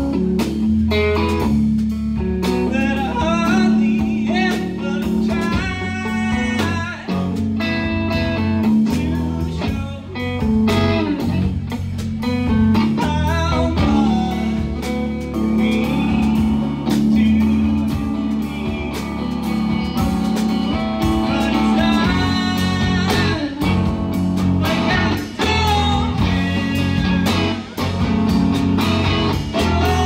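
Live rock band playing: electric guitar, electric bass and drum kit, with a lead vocal singing over them.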